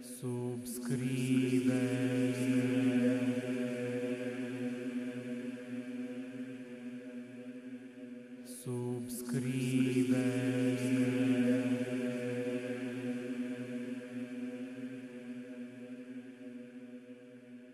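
Outro music: a low sustained drone rich in overtones that enters twice, about eight and a half seconds apart, each time with a short noisy attack, swelling and then slowly fading.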